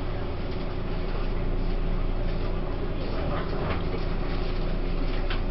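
Cabin running noise of a Taiwan Railways E1000 push-pull Tze-Chiang electric train: a steady rumble of wheels on the rails with a faint steady hum.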